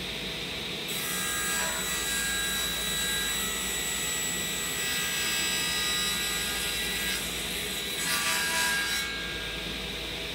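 Table saw running, its blade cutting through a plywood panel from about a second in until about nine seconds in, then spinning free.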